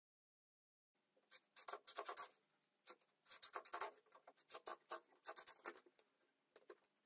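Faint scratching and tapping in short clusters of quick strokes, starting about a second in: handling noise of tools on plywood during shelf assembly, with no drill motor running.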